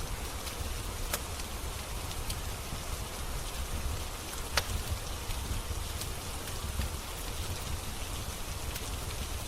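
Steady rain hiss with a low rumble beneath it, and scattered sharp crackles and pops from a wood fire, the loudest about halfway through.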